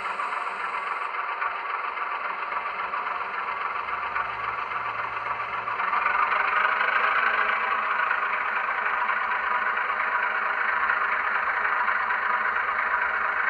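Sound decoder of a Minitrix N-scale V 140 model locomotive playing diesel engine sound through its small speaker: a thin, rattling engine running steadily, growing louder about six seconds in as if revving up.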